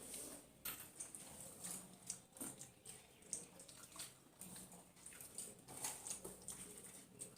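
Faint, irregular wet clicks and smacks of people eating a mix of rice, dal and fish, chewing and squishing it on the plate.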